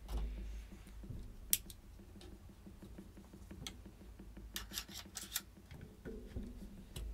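Hands fitting gun accessory parts: rubbing and a low handling rumble, with sharp clicks about a second and a half in, near the middle, and a quick run of clicks a little past the middle.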